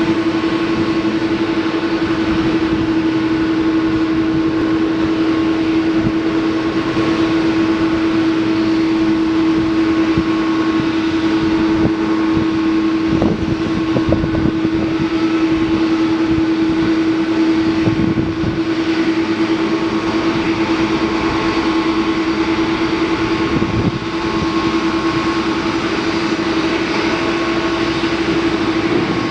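Jet engines of a Boeing 767-300 freighter at takeoff power during the takeoff roll: a loud, steady jet noise with a constant hum running through it.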